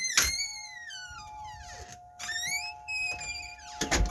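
Outdoor flood warning siren sounding a steady tone of two close pitches, starting just after the beginning. Over it, high whistles glide down and then rise and hold, and a thump comes near the end.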